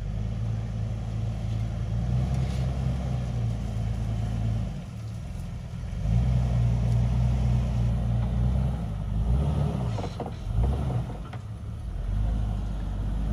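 Off-road 4x4's engine working at low revs under load on a rough trail, easing off about five seconds in, then pulling harder again with a brief rev up and down later on.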